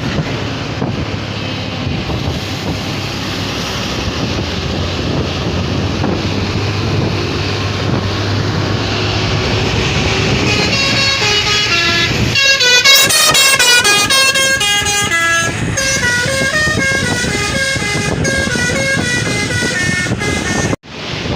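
A heavy vehicle's engine and road noise, then about halfway through a bus's telolet horn plays a multi-note tune, its notes stepping up and down, for some ten seconds. The sound cuts out abruptly for a moment near the end.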